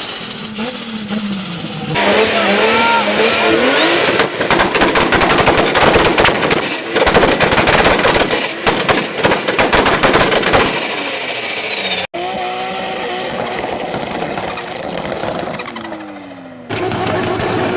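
Turbocharged car engines revving in several short clips, with rapid, dense popping and banging from anti-lag through the middle stretch.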